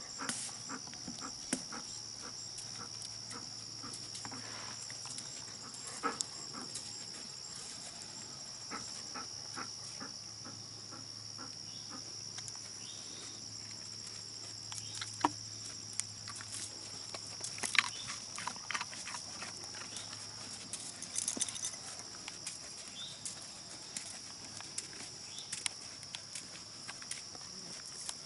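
A steady high chorus of evening insects, with scattered soft steps and knocks as the horse and its handler walk over the sand arena and past the poles.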